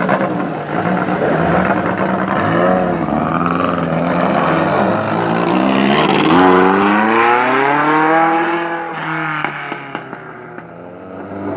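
Alfa Romeo Giulietta SZ T's 1600 four-cylinder engine revving hard, its pitch rising and dropping with each gear change and lift. A long climb in revs comes around the middle, then the engine note falls away and fades near the end.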